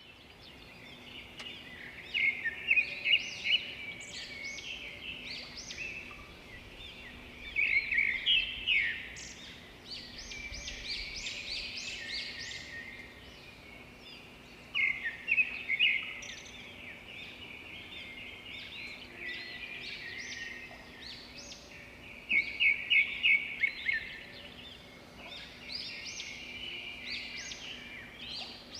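A songbird singing: short phrases of quick, high chirping notes and trills, repeated every several seconds over a quiet background.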